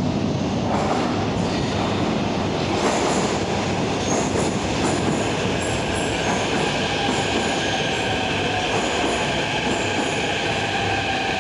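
Kyiv metro train running into a station with a steady loud rumble of wheels on rail. From about four seconds in, a high, steady squeal from the wheels joins it, typical of the train coming off a curve in the track.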